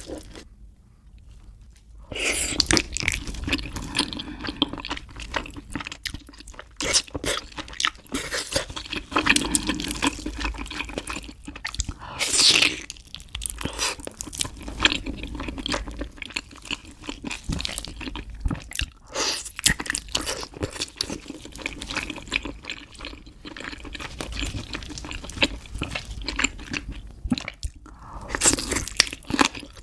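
Close-miked biting and chewing of braised beef feet, a dense run of mouth clicks and smacks that begins after a short quiet spell at the start.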